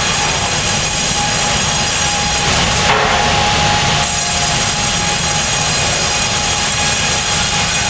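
Sawmill head saw cutting lengthwise through a log fed on a log carriage: a loud, steady sawing din with a constant whine, briefly harsher about three seconds in.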